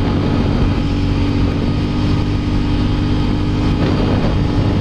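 Can-Am Renegade 1000 ATV's Rotax V-twin engine running at a steady speed while the quad is ridden along a road, the engine note holding level throughout.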